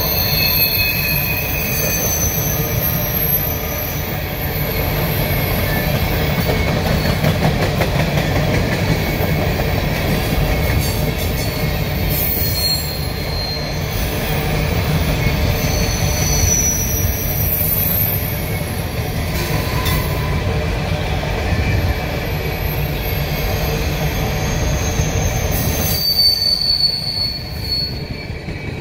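CSX coal train's hopper cars rolling past on a curve: a steady low rumble of wheels on rail, with high-pitched wheel squeal that comes and goes as the wheels grind through the curve. The sound eases slightly near the end as the last cars go by.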